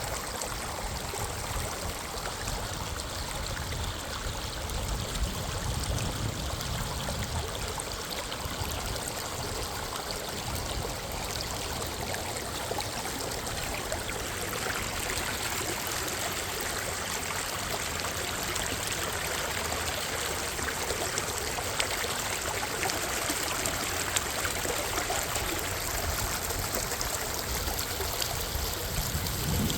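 A creek running steadily: a continuous rush of flowing water.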